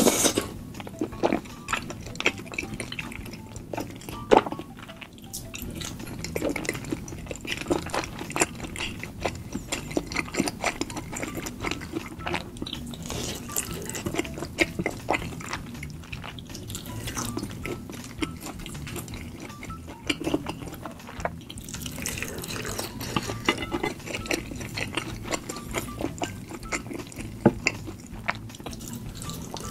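Close-miked wet chewing and mouth smacking of chewy tteokbokki rice cakes and ramen in thick spicy sauce, with a fork scraping and stirring through the saucy plate. There are many short, sharp clicks, and a few louder ones near the start and the end.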